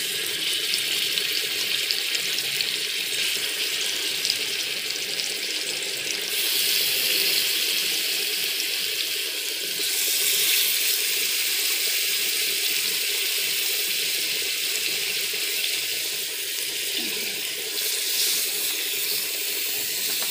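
Masala-marinated fish pieces sizzling in hot oil on a flat iron pan. The loud, steady sizzle starts abruptly as the first piece goes in and gets louder in steps, at about six, ten and eighteen seconds, as more pieces are added.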